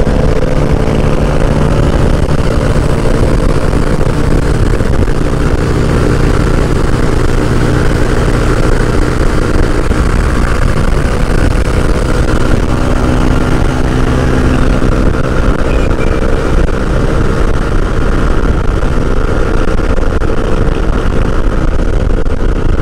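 Honda Click 150i scooter's single-cylinder engine running steadily at highway cruising speed, around 110 km/h, under a heavy rush of wind noise.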